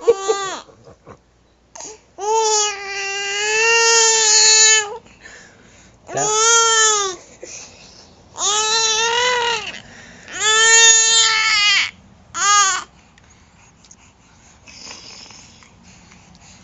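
Baby vocalising in long, high-pitched, drawn-out squeals: four held sounds of one to three seconds each, then a short fifth, with quiet gaps between.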